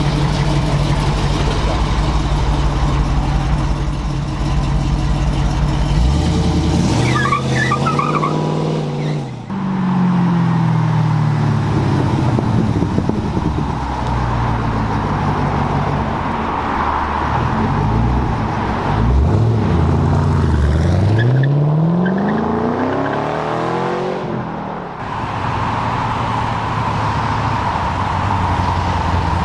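Big American V8 car engines rumbling at low revs, then revving up and accelerating hard several times. The pitch climbs and falls, with one long, steep rise about two-thirds of the way through that cuts off sharply before the steady rumble returns.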